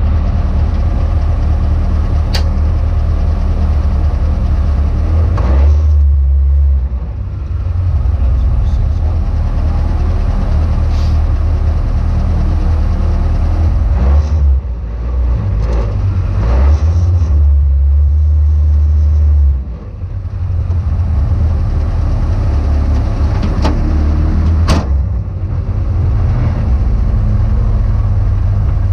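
A car's engine idling, heard from inside the cabin. Its low note shifts several times as the car moves off and stops, and a few sharp clicks sound over it.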